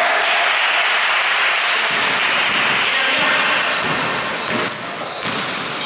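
Basketball bouncing on a wooden court as a player dribbles up the floor: a run of short knocks from about two seconds in, over a steady hiss of noise in the hall.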